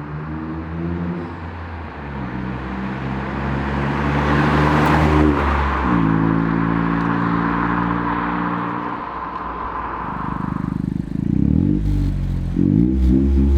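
Toyota GR Yaris's turbocharged three-cylinder running through a Milltek GPF-back exhaust, its note rising and falling in pitch as the car revs and changes gear. A rush of road and wind noise swells and fades partway through.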